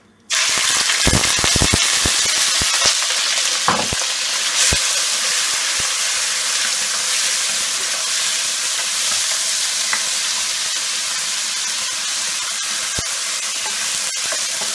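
Small pieces of marinated chicken breast dropped into hot olive oil in a nonstick pan, bursting into a loud, steady sizzle as they sear. The sizzle begins suddenly just after the start. Scattered clicks and knocks are heard over the first few seconds while the pieces are stirred with a spatula.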